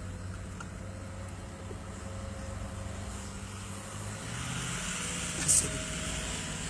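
Work truck driving, with a steady engine hum and road noise heard from inside the cab; the noise swells about four seconds in, with a brief sharp click near the end.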